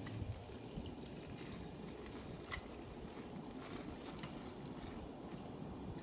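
Toy train engine and truck rolling along plastic track: a faint low rumble of wheels with a few scattered clicks.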